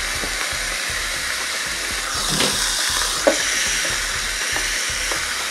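Food sizzling and steaming inside a closed Chefman electric panini grill press: a steady hiss that swells briefly about two seconds in, with a light tap a little after three seconds.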